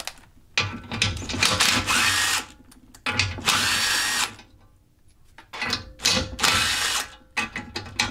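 Cordless power driver running in several short runs, each spinning up with a rising whine that then holds steady: bolts being run out as the test-fitted crossmember and rack-forward kit are taken apart for coating.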